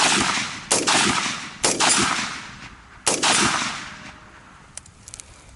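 Four AR-15 rifle shots fired at an uneven pace over about three seconds. Each is a sharp crack followed by a long fading echo.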